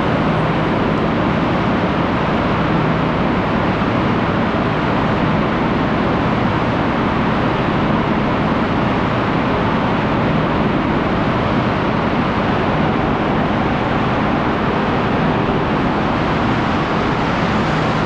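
Loud, steady din of cement packing-plant machinery, with bag conveyors and packing machines running continuously and no separate knocks or changes.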